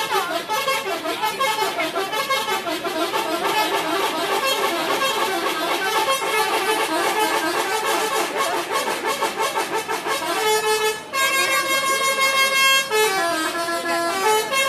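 Multi-tone 'telolet' air horn on an Agam Tungga Jaya bus, playing a melody of quickly stepping horn notes. About eleven seconds in it holds one chord for a couple of seconds, then goes back to stepping notes.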